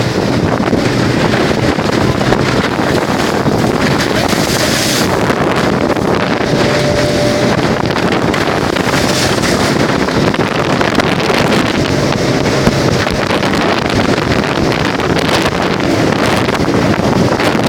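Motorboat engine running steadily under way, with heavy wind buffeting the microphone.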